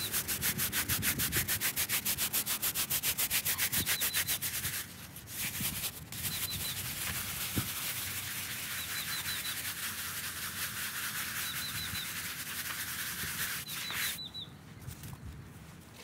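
Stiff bristle brush scrubbing the wet face of an old stone headstone: brisk back-and-forth strokes, several a second for the first five seconds, then after a short break steadier scrubbing that stops near the end. A bird chirps in short runs of notes now and then.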